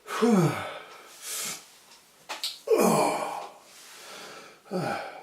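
A man gasping and groaning in pain from the burn of a ghost pepper he has just eaten: three falling groans, with hard breaths between them.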